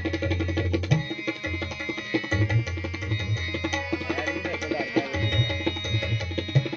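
Tabla playing a dense stream of strokes, with the bayan's low booming strokes that sometimes bend in pitch, over sustained harmonium notes.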